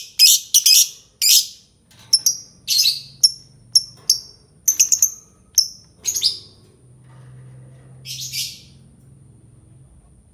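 Albino lovebird giving a series of short, shrill chirping calls in quick succession, about a dozen over six seconds. One more brief burst follows about two seconds later, then the calling stops.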